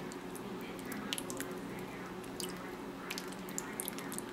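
Hot sauce being shaken from a bottle onto chicken and tomatoes, heard as faint drips and soft scattered ticks over a steady low hum.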